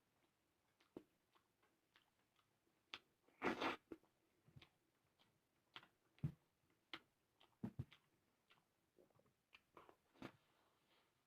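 Faint eating sounds from a mukbang: chewing, with scattered small mouth clicks and smacks. About three and a half seconds in there is one short, louder burst of noise.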